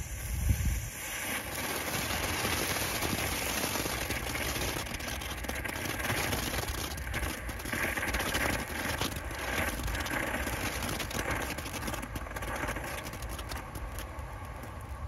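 Ground fountain firework (a Purple Fountain) spraying sparks: a steady hiss with crackling, after a brief louder burst about half a second in.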